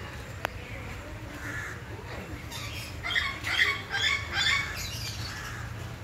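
African grey parrot giving a run of short squawking calls, loudest from about three to four and a half seconds in. A single sharp click comes about half a second in.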